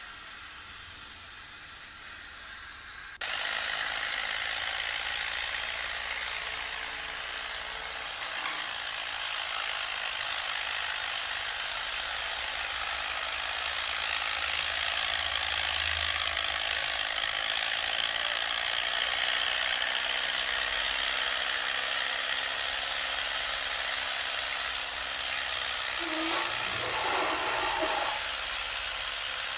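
Farm tractor running under load while pulling a disc harrow through tilled soil: a steady, noisy din with a faint wavering engine hum beneath. The sound jumps abruptly louder about three seconds in.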